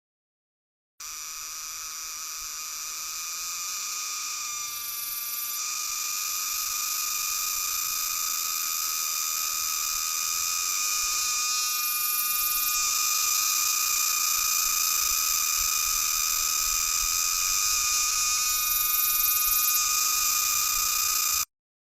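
A cicada's song: a steady, high-pitched, rasping buzz that swells slowly louder, its tone briefly changing about every seven seconds. It starts and stops abruptly.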